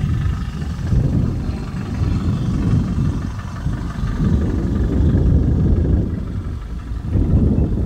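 Wind buffeting the microphone: a loud, low rushing noise that swells and dips in gusts, easing briefly about three seconds in and again near the end.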